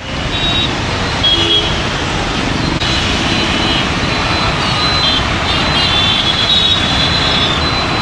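Road traffic noise from a traffic jam: engines running, with many short vehicle horn toots sounding over the din.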